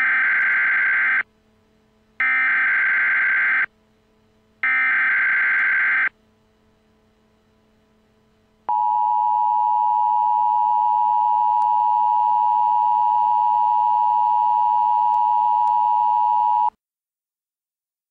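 Emergency Alert System tones: three bursts of SAME header data, a warbling digital screech about a second and a half each with short gaps between. Then the EAS attention signal, a steady high tone held for about eight seconds that cuts off abruptly.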